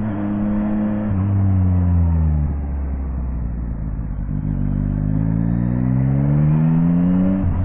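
Yamaha Tracer 9 GT's inline-three engine easing off with falling pitch, running low for a couple of seconds, then pulling up again with rising pitch as the bike accelerates, with wind rushing over the microphone.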